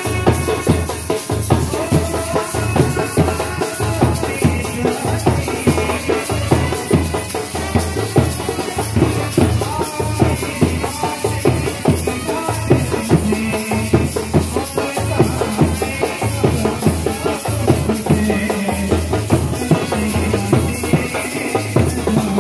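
Indian brass band playing: trumpets carry a melody over a steady bass drum beat with shaker-like percussion.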